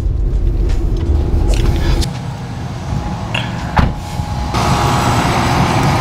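Low road rumble inside a moving van for about two seconds, then it drops away, with a single thump near four seconds in. From about four and a half seconds comes the steady whir and hum of outdoor air-conditioning condenser units running.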